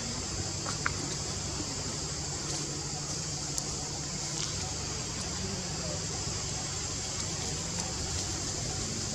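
Forest ambience: a steady, high-pitched insect buzz that does not change, with a single small click about a second in.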